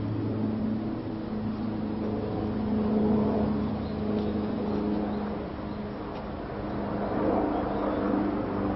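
Motor vehicle engine running, a steady low drone with a hum whose pitch drifts slightly.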